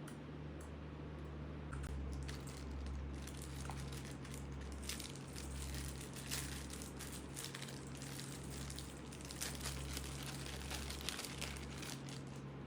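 Packaging crinkling and crackling as it is handled, the dense crackles starting about two seconds in, over a steady low hum.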